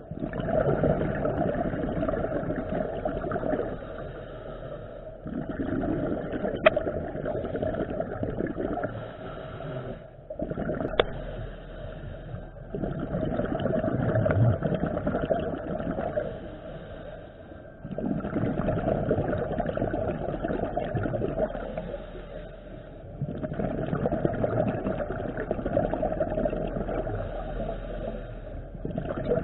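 Scuba breathing heard underwater: long rumbling swells of exhaled regulator bubbles, one about every five seconds, with short quieter breaks for each inhale. A sharp click sounds about seven seconds in.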